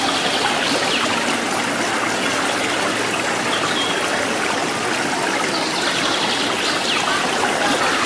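Stream water flowing steadily in a rocky gorge, a continuous even rush.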